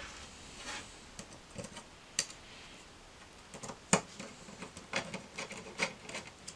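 Small screwdriver driving tiny screws through a Raspberry Pi add-on board into its support pillars: light clicks and scrapes of metal on metal. The loudest is a sharp click about four seconds in, followed by a quick run of small ticks.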